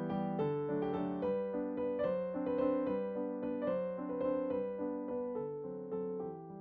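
Background keyboard music: a piano-like instrument playing a steady stream of notes and chords.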